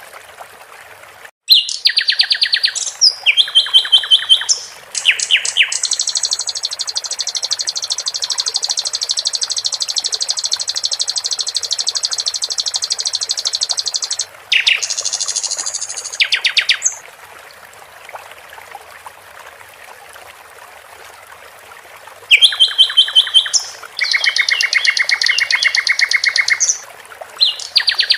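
Sikatan londo songbird singing bursts of rapid repeated notes and a long, fast trill, with a pause of a few seconds past the middle, over a steady trickle of water.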